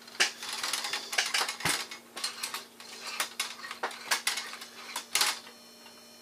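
Irregular metallic clinks, knocks and rattles as the chrome body and parts of a 1936 General Electric model 600 toaster are handled and worked at by hand. The sharpest knocks come about a second and a half in and about five seconds in.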